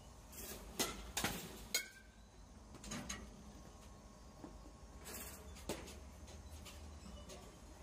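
Batting-cage impacts: sharp knocks and cracks in two clusters, about a second in and again about five seconds in. One, near two seconds in, carries a short metallic ring, like a metal bat striking a pitched ball.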